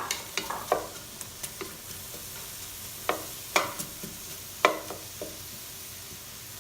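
Chopped onion sizzling steadily in hot oil in a frying pan. A utensil knocks and scrapes against the pan several times as the onion is stirred.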